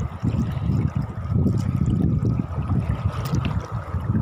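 Shallow seawater sloshing and lapping, with an uneven low rumble underneath.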